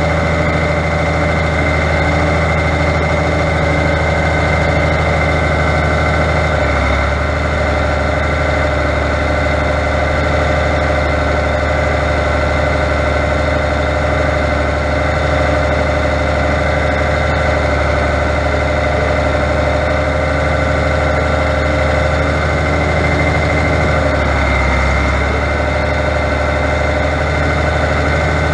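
Fiatagri 100-90 tractor's diesel engine running steadily, working the front loader as it lifts a round hay bale. The engine note shifts briefly twice, about a quarter of the way in and again near the end.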